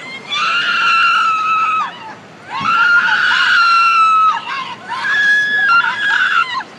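A woman screaming: three long, high-pitched screams, each held for about a second and a half to two seconds with short breaks between.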